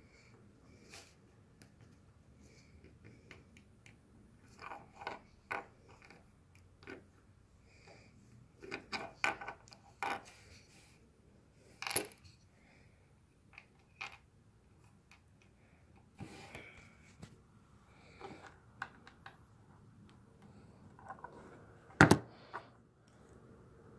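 Small plastic Lego bricks clicking and clattering as they are handled and pressed together, in scattered bursts of quick clicks. A single louder knock comes near the end.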